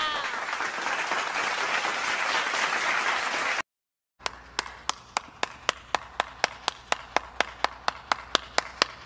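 Crowd applause that cuts off suddenly after about three and a half seconds. After a short silence, one person claps steadily, about four to five claps a second.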